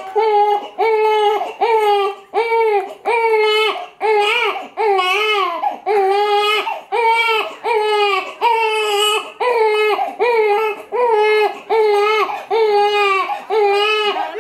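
Newborn baby crying: short, evenly repeated wails, a little under two a second, without a break.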